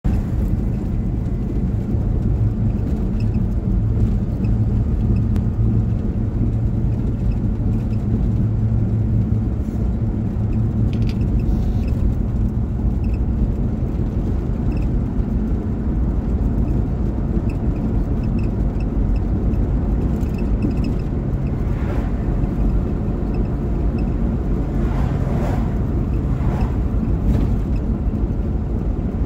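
Steady low rumble of a car's engine and tyres heard from inside the cabin while driving along a road, with a few brief swells of noise in the last several seconds.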